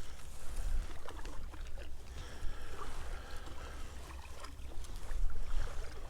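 Kayak paddle strokes splashing and dripping in the water, with a steady low rumble of wind on the microphone.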